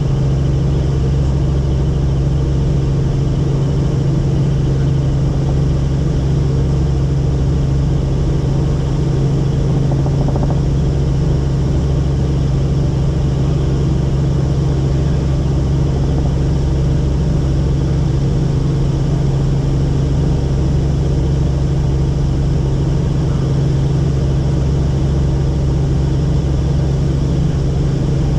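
Helicopter in flight, heard from on board: the rotor and engine make a loud, steady low drone.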